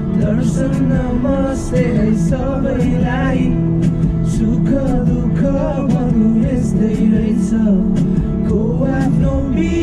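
Music: a song with a male voice singing over steady instrumental backing.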